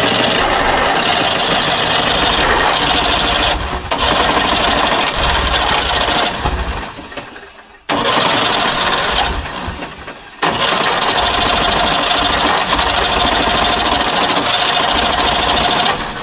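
A Trabant 601's two-cylinder two-stroke engine is turned over on its starter in a start attempt after more than 30 years standing, and seems to half-catch. It goes in three long spells: the first two trail off, and the next one starts abruptly about eight and about ten and a half seconds in.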